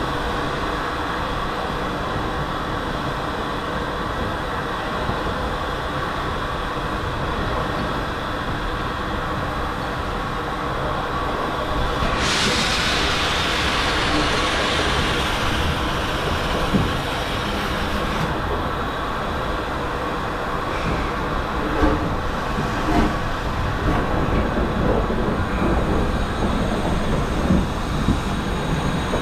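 Steam locomotive running slowly into the platform with a steady low rumble. About twelve seconds in, a sudden loud hiss of steam from the cylinder drain cocks lasts some six seconds. After it come irregular knocks and clanks of wheels over rail joints as the engine passes close by.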